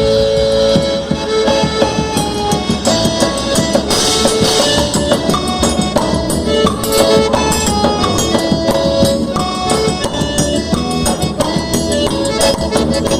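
Instrumental festa junina quadrilha music in forró style: a band intro of held melodic notes joined about a second in by a busy, steady percussion beat, with tambourine and accordion sounds among the instruments.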